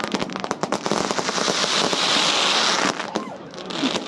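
Aerial fireworks crackling: a fast run of sharp pops that thickens about a second and a half in into a dense, hissing crackle, which dies away about a second later, with a few scattered crackles again near the end.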